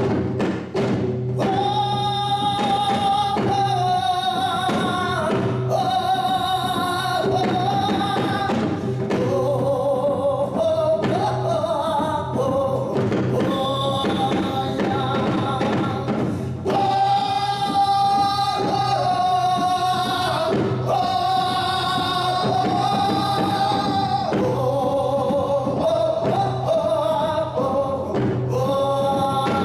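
Male vocalist singing a slow Korean song in long held notes with heavy vibrato, over a steady low accompaniment. A few sharp percussive strikes open the passage before the voice comes in.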